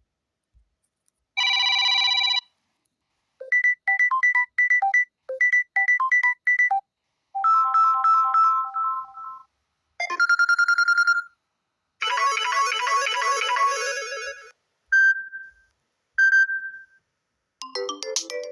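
Samsung Galaxy A04 ringtones previewed one after another: about seven different short electronic tones and melodies, each cut off after one to three seconds, with brief silences between them.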